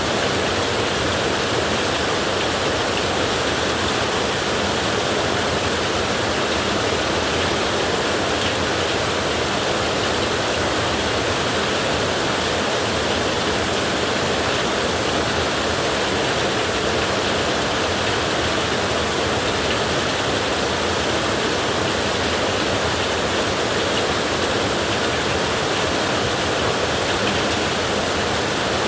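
Heavy rain falling steadily on a tin roof, a dense, unbroken hiss of drops on metal.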